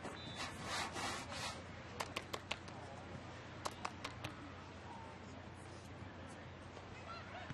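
Outdoor ambience with a short rustle of noise, then two quick runs of about four sharp claps, two seconds apart, over faint distant voices.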